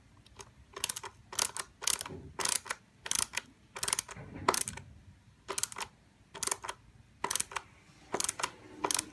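Ratcheting hand screwdriver driving a screw through a white plastic fitting into a cabinet panel. It gives a short burst of ratchet clicks about once every half second to a second, about a dozen in all, as the handle is turned back and forth.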